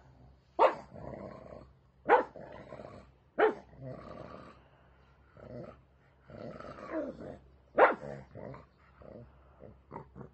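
Pug barking four loud, sharp times, with growling and grumbling between the barks.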